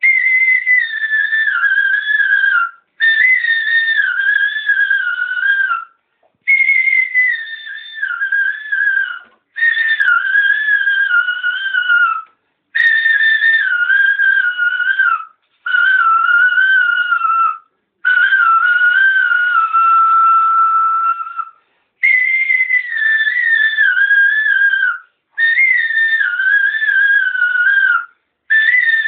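A man whistling a slow uzun hava folk melody: about ten breath-length phrases, each wavering and drifting downward in pitch, with short pauses for breath between them and one long held note a little past the middle.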